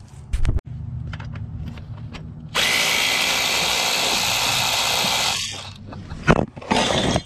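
Cordless drill with a triple-square bit backing out the oil feed line banjo bolt. It runs slowly at first, spins at full speed for about three seconds from around two and a half seconds in, then winds down. A knock comes near the start and a few more near the end.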